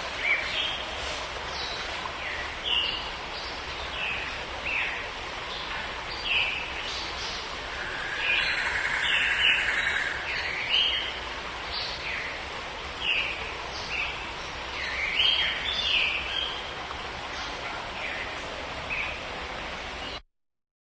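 Many birds chirping and calling in short repeated notes over a steady background hiss, with one longer, steady call about eight to ten seconds in. The sound cuts off abruptly near the end.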